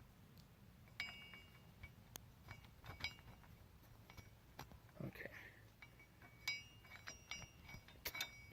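Scattered light metallic clinks and taps, each with a short ring, as a steel header-spreader tool and its bolts are handled and knocked against a truck's wheel hub.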